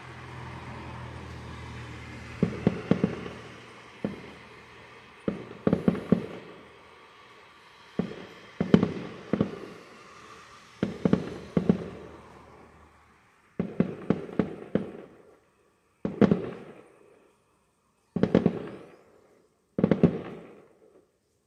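Distant display fireworks going off: tight clusters of sharp bangs roughly every two seconds, each cluster echoing away. A low steady hum sits underneath for the first half and stops about two-thirds of the way through.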